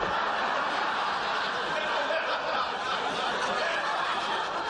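Studio audience laughing in one long, steady wave.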